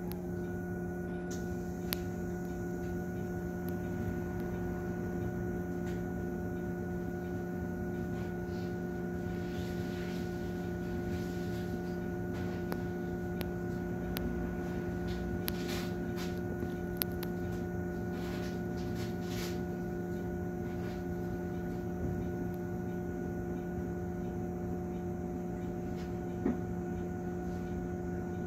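MAN city bus heard from inside: a steady hum with several fixed tones that holds unchanged throughout, with a few faint clicks and knocks.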